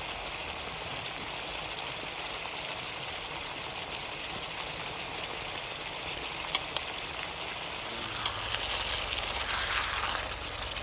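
Chunks of meat sizzling and crackling in a hot frying pan, a steady spitting hiss that grows louder near the end.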